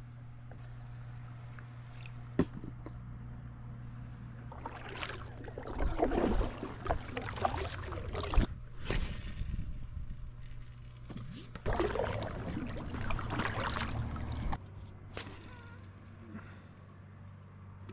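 Water sloshing and splashing around a small inflatable canoe in two bouts of a few seconds each, with sharp knocks among them, over a low steady hum.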